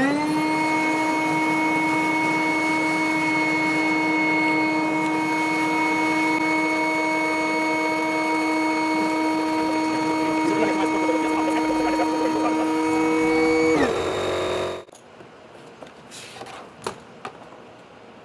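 High-pressure electric air pump inflating an inflatable boat through a hose: its motor spins up with a quick rising whine, runs at a steady pitch, then winds down and stops about fourteen seconds in. A few faint knocks follow.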